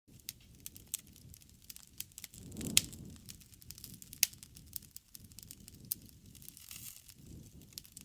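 Wood fire crackling: scattered sharp pops and snaps over a low rush of burning. The loudest pop comes a little under three seconds in, with a brief swell of the flame's rush around it.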